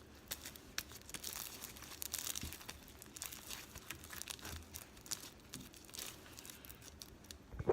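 Hands squeezing and stretching sticky slime packed with Orbeez water beads, giving a faint, steady run of small crackles and pops.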